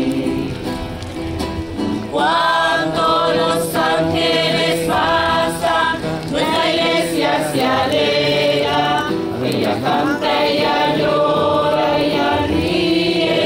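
Music: a song sung by several voices together, like a choir, with the melody gliding from note to note.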